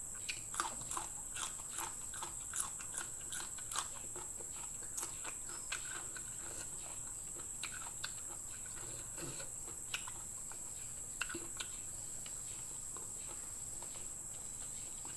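Close-up eating sounds: chewing with short, irregular wet clicks and crunches, frequent for the first few seconds and then sparser.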